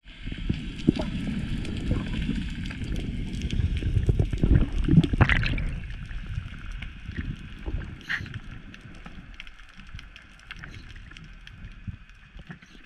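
Water rushing and sloshing around an underwater camera as a freediver descends. It is loudest and most turbulent in the first half, then settles into a fainter hiss with scattered small clicks.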